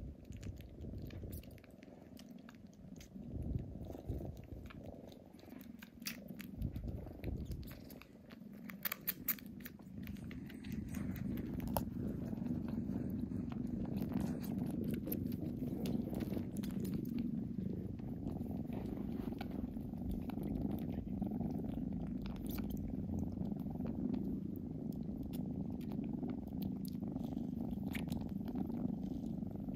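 Kittens purring steadily while suckling on a person's hand, with small wet sucking clicks over the purr. The purring grows louder about a third of the way in.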